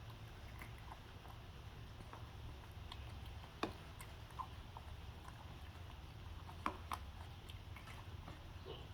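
A baby monkey chewing and smacking on small pieces of food: faint, scattered wet clicks, a few sharper ones about three and a half and seven seconds in, over a low steady hum.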